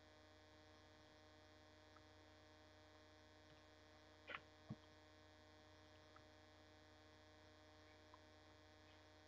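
Near silence with a steady electrical mains hum, and two faint clicks about four and a half seconds in.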